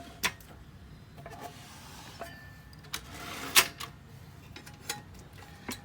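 Sharp knocks and clicks from an aluminium typewriter case being handled: one a quarter second in, the loudest about three and a half seconds in, with lighter ticks between.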